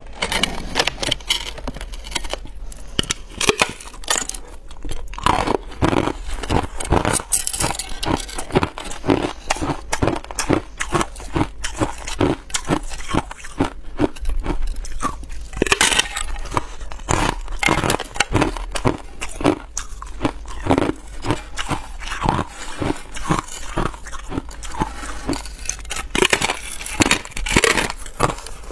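Hard ice being bitten and chewed: a dense, continuous run of sharp crunches and cracks, several a second.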